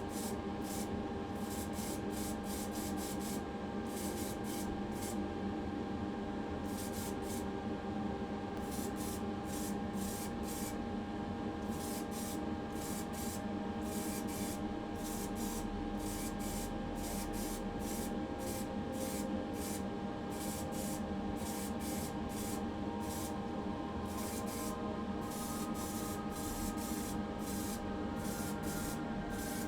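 Short, irregular bursts of hissing spray over a steady machine hum, like an air-powered spray or blasting tool running off a compressor.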